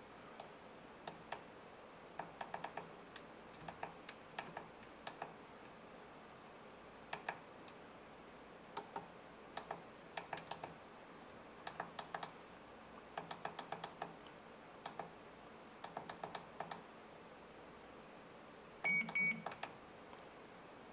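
Faint button clicks on a FrSky Taranis Plus radio transmitter as its menu settings are stepped through, coming in small clusters of quick clicks, with a short beep from the radio near the end.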